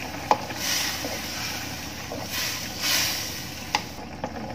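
Spatula stirring coconut-milk stew in a wok over a gas burner: the liquid sloshes in two swishing strokes, and the spatula knocks sharply against the side of the wok twice, once near the start and again near the end, over a steady background hiss.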